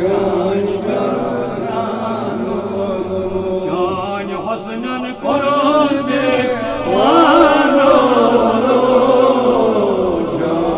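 A Kashmiri naat chanted by a male voice, with long held notes that waver in ornamented runs over a steady sustained drone beneath.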